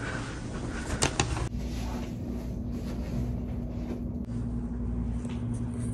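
A couple of sharp clicks about a second in, then a steady low hum with a faint steady tone: the background noise of an indoor room.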